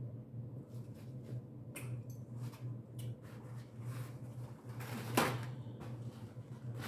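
Close-up eating of boiled blue crab: irregular cracking and crackling of shell, wet chewing and smacking, with one louder sucking sound about five seconds in, over a steady low hum.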